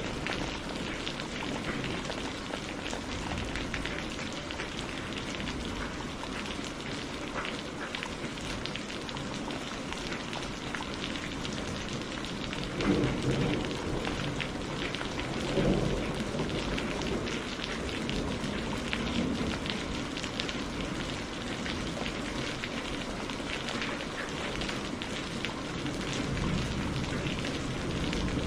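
Steady heavy rainfall pattering on surfaces, with two deep thunder rumbles swelling up about halfway through.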